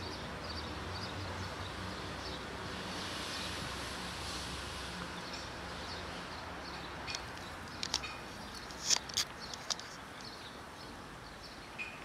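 Cat crunching dry kibble: a few sharp crunches in the second half, the loudest about nine seconds in, over steady low background noise.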